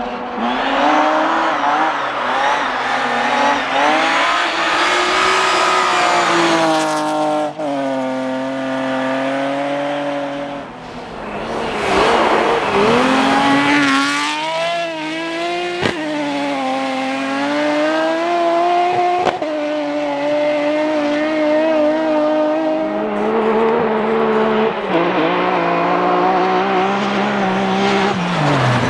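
BMW rally car engines driven hard on a stage, their pitch climbing and dropping again and again as the drivers lift and change gear, with a few sharp cracks along the way.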